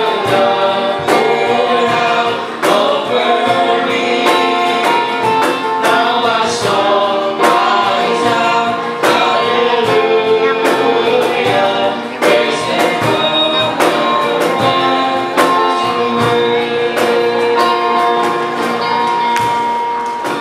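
Live gospel worship song with singing, accompanied by guitars and a cajon keeping a steady beat.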